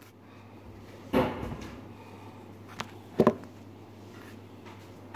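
Bumps and knocks from a phone being handled and set in place up close: a louder bump about a second in and a quick double knock a little after three seconds, over a low steady hum.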